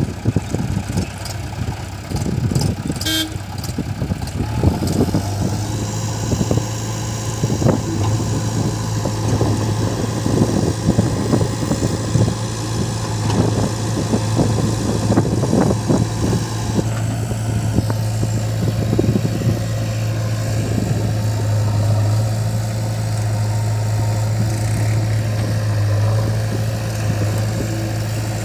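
Heavy diesel machinery running steadily under load, a backhoe loader working beside a tractor, with irregular knocking throughout. A brief horn toot about three seconds in.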